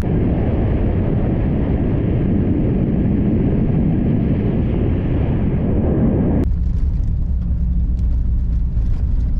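A vehicle engine humming steadily under loud rushing tyre and road noise while driving. The rushing noise drops away suddenly about six and a half seconds in, leaving the engine hum and a few faint clicks.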